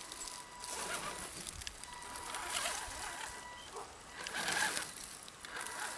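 Axial SCX10 scale crawler's electric motor whining steadily as the truck creeps over the forest floor, with a few bursts of rustling and crunching as its tyres and body push through moss, twigs and brush.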